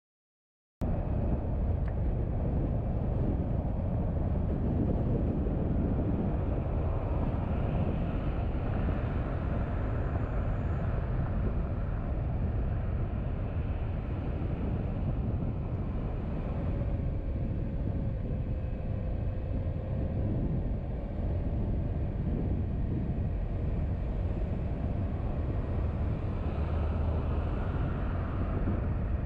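Car driving, with steady engine and tyre-on-road noise that cuts in abruptly about a second in. A faint whine rises and falls briefly midway.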